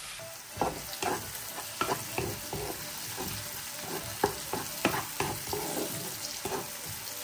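Sliced onions and masala paste frying with a steady sizzle in a non-stick frying pan, stirred with a spatula that scrapes and taps against the pan at irregular moments.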